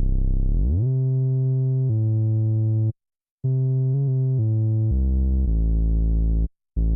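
Prophet-5 synthesizer playing low, darkly filtered sustained notes, with a quick upward pitch glide about a second in and several note changes. The notes cut off abruptly twice, once for about half a second near the middle and briefly near the end.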